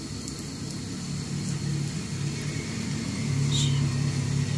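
Steady low rumble with a hum, the running background of a kitchen gas range, growing a little louder about three seconds in.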